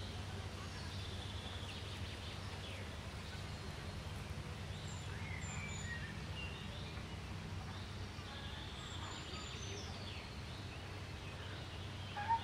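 Steady low hum of outdoor background noise, with faint wild-bird chirps and short gliding whistled notes scattered through it. A brief louder call comes right at the end.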